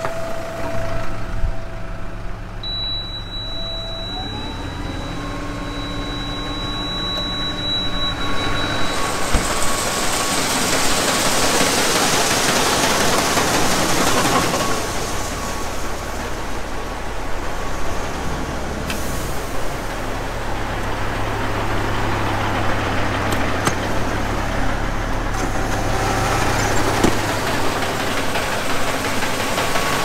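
Tractor diesel engine running, its pitch rising about four seconds in as it is throttled up. From about nine seconds in, a steady rushing of a PTO-driven grain auger moving shelled corn runs over the engine.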